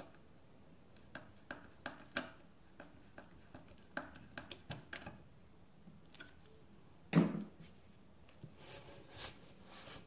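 Screwdriver driving a metal cam lock screw into the edge of a particleboard bookcase panel by hand: a run of light, irregular clicks and ticks. About seven seconds in comes a single dull thump, then brief scraping and rustling.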